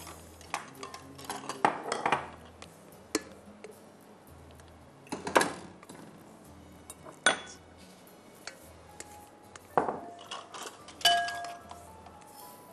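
Kitchenware clinking and knocking as ingredients are measured out: a plastic measuring cup, a steel bowl and glass mixing bowls tapping against one another, with several sharp knocks spread through and a short glassy ring near the end.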